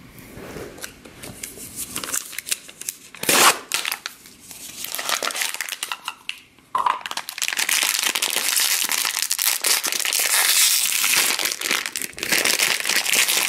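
Foil blind-bag packet crinkling as it is handled and opened by hand: scattered rustles at first, then steady, loud crinkling from about halfway through.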